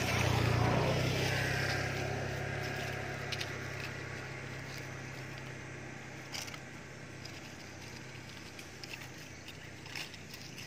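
A motor vehicle engine passing close by, loudest in the first second, then fading away steadily over several seconds.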